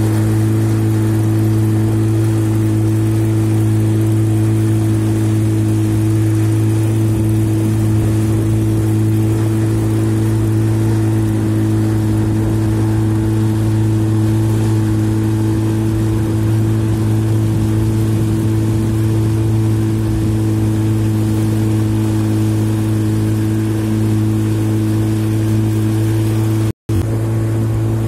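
Evinrude E-TEC two-stroke outboard motor running steadily at cruising speed, a constant unchanging hum, under the rushing hiss of the wake and wind. The sound cuts out for an instant near the end.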